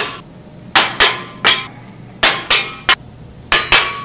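About ten sharp metallic bangs in quick, uneven succession, each with a brief ring, as of a hard object striking metal repeatedly.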